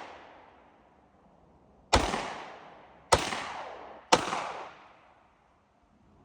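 Three handgun shots, about two seconds in and then roughly a second apart, each followed by a long fading echo.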